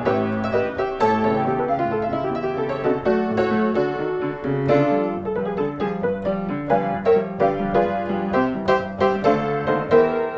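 Background piano music: a steady run of quick notes over held low notes.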